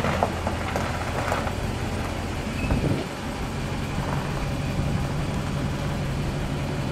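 Pickup truck engine idling steadily, a truck camper loaded on its bed, with a brief thump about three seconds in.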